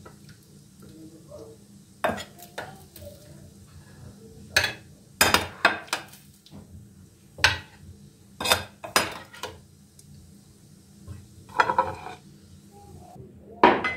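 Dishes and cutlery clinking and knocking: a dozen or so sharp clinks at irregular intervals, a few in quick succession.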